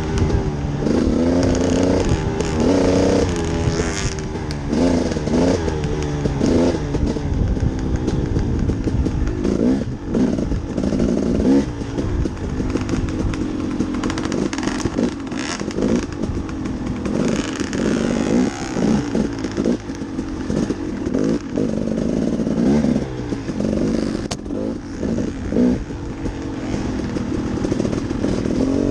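Dirt bike engine being ridden hard on a trail, its pitch rising and falling over and over as the throttle is worked and gears change.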